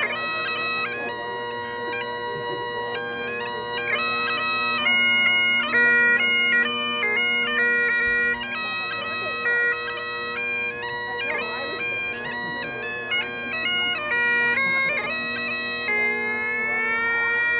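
Bagpipes playing a traditional tune: steady drones under the chanter's stepping melody. Near the end the notes slide upward and settle into a held note.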